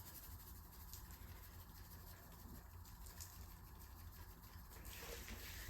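Faint, light pattering and ticks as onion powder is shaken from its container onto a rack of raw ribs, over a low hum.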